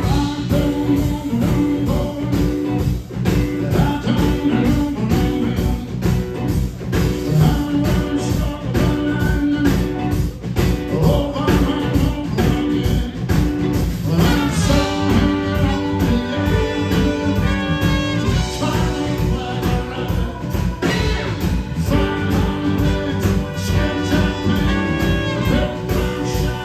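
Blues-rock band playing live, full band with a steady drum beat.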